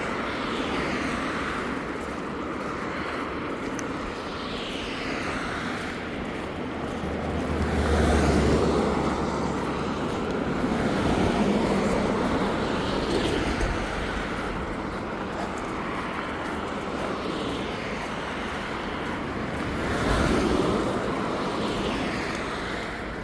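Road traffic passing close by: a steady rush of vehicles that swells and fades several times, loudest with a low rumble about a third of the way in and again near the end.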